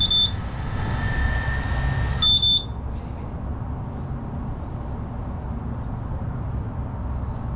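Two short, high-pitched electronic beeps, one right at the start and one about two and a half seconds in, with a faint steady tone between them, over a steady low background rumble.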